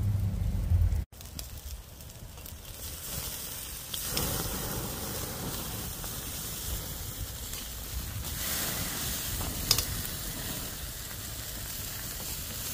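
Sauce-basted rosemary pork ribs sizzling on a grill grate over an open fire, a steady sizzle. A low rumble in the first second cuts off suddenly, and a single sharp click comes about three-quarters of the way through.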